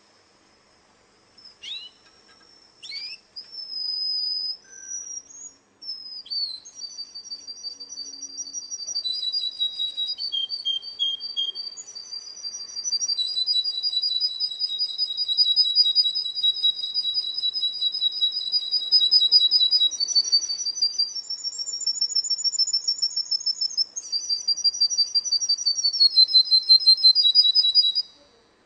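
Russian song canary singing: two short falling calls, then a long, nearly unbroken song of rapid high trills, each held for several seconds before it steps to a new pitch, cutting off near the end.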